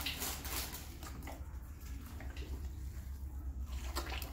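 Hands kneading tamale masa with lard in a large pot: scattered soft squishes and slaps of the wet dough, over a steady low hum.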